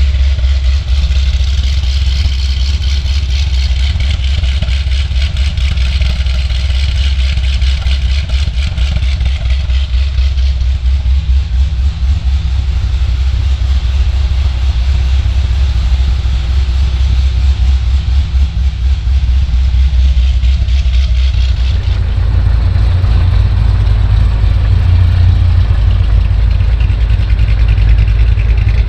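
The 2008 Corvette C6 Z06's 7.0-litre naturally aspirated LS7 V8, fitted with a bold, choppy camshaft, running loud and steady. Its sound changes abruptly about two-thirds of the way in.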